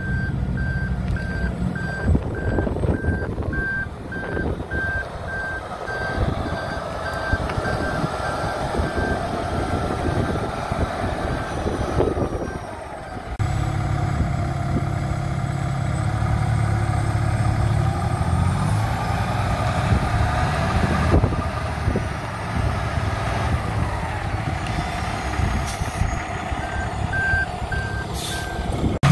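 Freightliner Cascadia semi tractor's diesel engine running while it maneuvers, with a backup alarm beeping at a steady rate for the first dozen seconds and again briefly near the end. The engine rumble gets heavier about halfway through, once the beeping has stopped.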